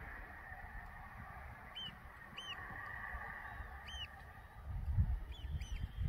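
Hooves of a herd of young Friesian horses galloping over grass, a dull drumming that gets much louder near the end as the herd comes close. Short high bird calls sound about five times over it.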